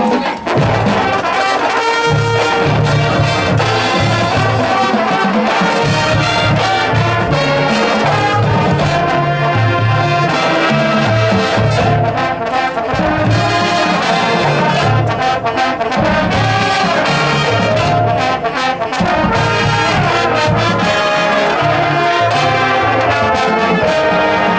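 Marching band playing its field show: the brass section plays loud and sustained, over a pulsing low part.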